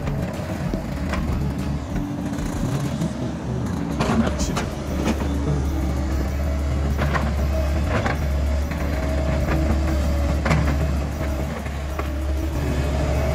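Case crawler excavator's diesel engine running steadily under load while it works, with a few sharp knocks scattered through as the machine handles tree trunks.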